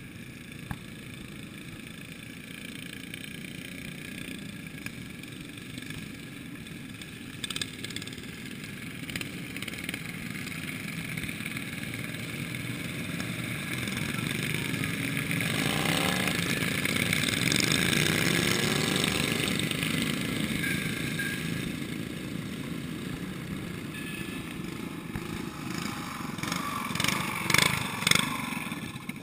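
A pack of racing lawn tractors running on the ice. Their engines grow louder as they approach, pass close about halfway through with the pitch sliding, then fade away. Several sharp clattering knocks are the loudest sounds near the end.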